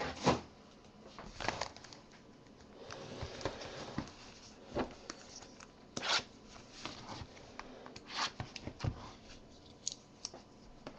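Panini Select football cards and their packs being handled: scattered light rustles, slides and taps of card stock.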